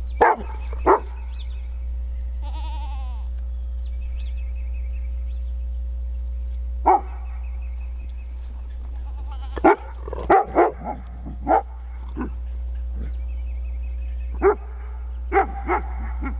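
Dogs barking in short, sharp barks: a pair at the start, single barks, then clusters of several about ten seconds in and again near the end. A goat bleats faintly between them.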